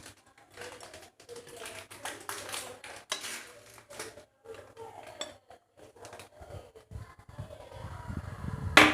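A spoon scraping and clinking against a cooking pan as fish pieces are stirred into a curry base, with one sharp, louder clink near the end.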